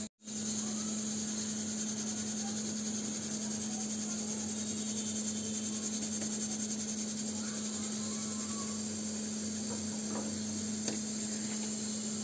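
Steady background hum with a high hiss, cut out for an instant at the start, with a few faint clicks about ten seconds in.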